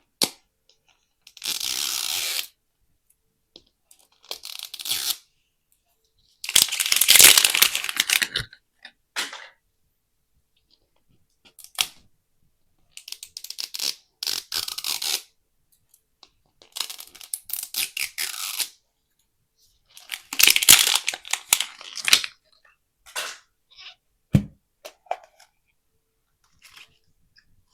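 Plastic packaging of Mini Brands capsules being torn open and crinkled by hand, in a series of separate rips a second or two long with short pauses and a few sharp clicks between.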